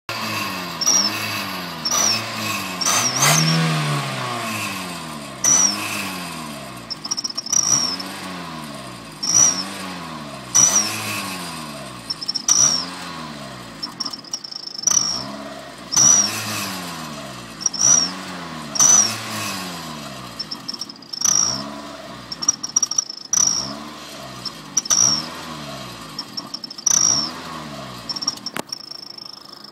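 Mazda 323 1.6 engine revved in repeated quick blips, about one every second or two. An exhaust turbo whistler in the tailpipe gives a high whistle that rises and falls with each rev.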